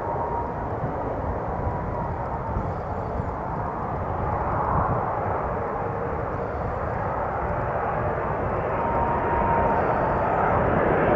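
Airbus A330-300 freighter's twin jet engines on final approach: a steady rumble with a faint whine that slowly grows louder as the airliner nears.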